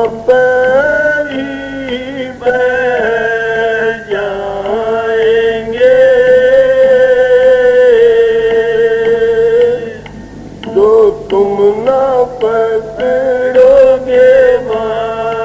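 A man singing a devotional shabad (Radhaswami hymn) in a long melodic line, holding notes for several seconds, with a short break about ten seconds in before shorter phrases.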